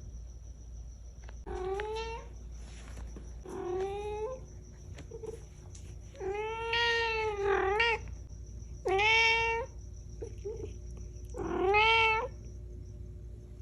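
Blue golden shaded British Shorthair cat meowing: about six separate drawn-out meows, each bending in pitch, the longer and louder ones in the second half.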